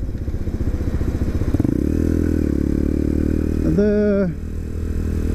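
Sinnis Apache 125cc motorcycle engine running under way. Its note changes about a second and a half in, rising slightly and then holding steady.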